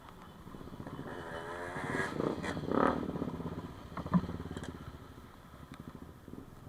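Motorcycle engine running, growing louder and rising in pitch to a peak about two to three seconds in, then easing off, with a few light clicks.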